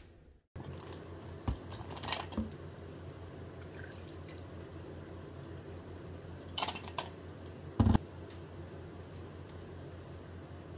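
Juice poured from a bottle into a glass, with light clicks and knocks of the bottle and glass, and one loud thump about three-quarters of the way through, over a steady low hum.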